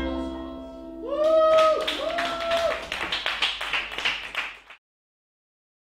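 The band's final chord ringing and fading, then audience applause with two whooping cheers; the applause cuts off suddenly near the end.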